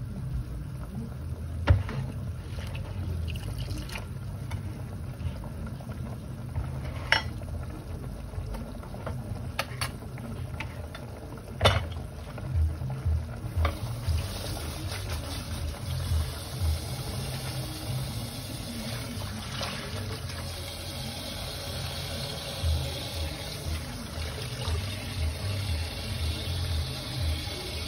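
Pot of soup bubbling at a boil, an irregular run of soft low blips, with a few sharp clicks.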